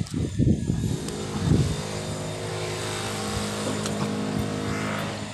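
Wind buffeting the microphone for about a second, then a steady low engine-like hum from a motor running nearby.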